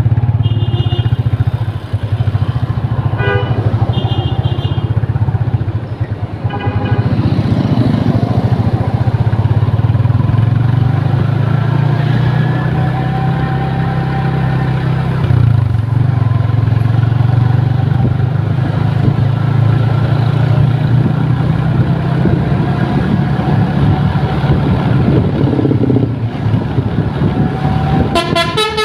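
Tour bus diesel engines running loud and steady as buses pass close by, with a few short horn blasts in the first seconds. Near the end a multi-tone telolet musical horn starts playing.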